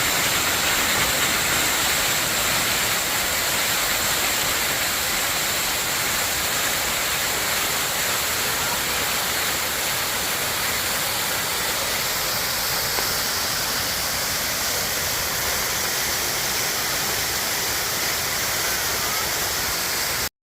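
Waterfall rushing: a loud, steady roar of falling water that cuts off suddenly near the end.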